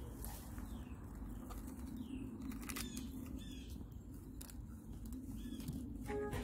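Birds chirping a few times over a steady low background hum; music begins near the end.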